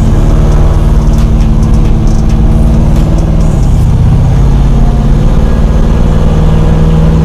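Chevy 350 small-block V8 running steadily through its headers and exhaust, with the ignition timing freshly dialed in and the engine running well.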